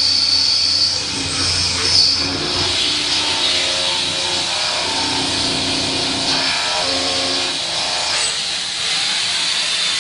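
High-feed milling cutter with BNMX0603 carbide inserts cutting SKD11 tool steel hardened to HRC58 on a CNC machine. It makes a steady cutting and machine noise with a high hiss and a few held tones.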